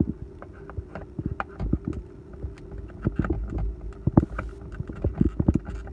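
Irregular plastic clicks and knocks as the rearview mirror's spring-bracket mount is worked onto its windshield anchor button.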